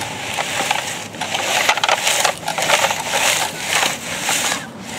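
Sand scraping and crunching under the blade and wheels of a Tonka steel toy grader pushed by hand, in uneven surges.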